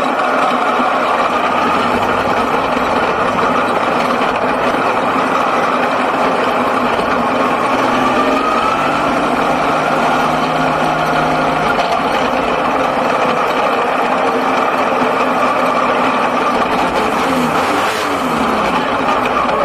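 Six-cylinder speedway sedan's engine running hard, heard from inside the cockpit, its note rising and falling as the driver gets on and off the throttle.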